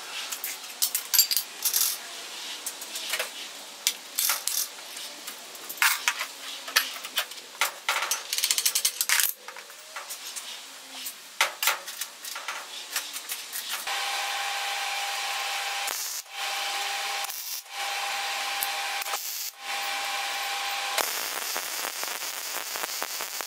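Steel pieces and magnetic welding squares clanking and knocking as they are set in place. Over the second half, a MIG welder runs in several short welds with brief stops between them, the last run steadier.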